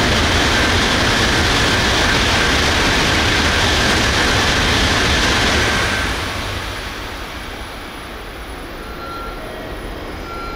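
Tokaido Shinkansen train passing through the station at high speed: a loud, steady rush of wheel and air noise that drops away about six seconds in, leaving a fainter rumble.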